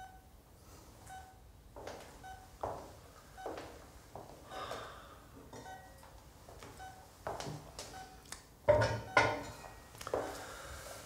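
Hospital patient monitor beeping steadily, a short tone about once a second, under a man's ragged crying breaths, with two sharp sobbing gasps near the end the loudest.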